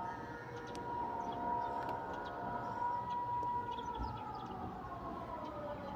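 Siren sounding, which the uploader calls very strange: it holds one steady tone, then from about halfway through its pitch slowly slides down.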